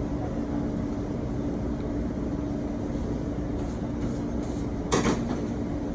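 Steady low machine hum with a constant low drone, typical of kitchen ventilation or refrigeration running, and one brief sharp knock about five seconds in.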